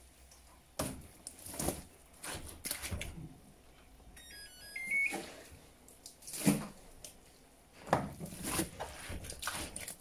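Towels being pushed and dropped into a top-load washing machine drum: a series of irregular soft rustles and muffled thumps of fabric, with the loudest about six and a half and eight seconds in.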